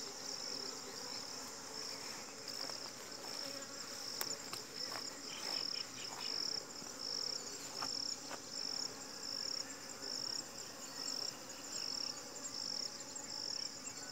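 Honeybees buzzing in large numbers around hive entrances. Over it, a high chirp repeats evenly about twice a second, with a few faint clicks in the middle.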